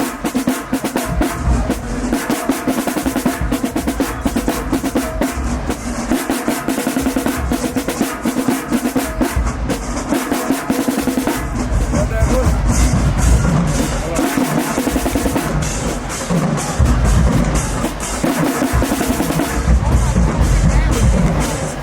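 Marching band drumline playing a cadence: rapid snare drum rolls and strikes over pounding bass drums, with the low drums getting heavier about halfway through.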